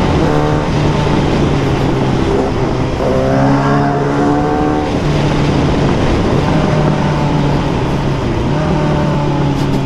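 Kawasaki Z900 inline-four with an aftermarket exhaust, running under way, revs climbing about three to four seconds in and easing off briefly twice after that, over a steady rush of wind and road noise.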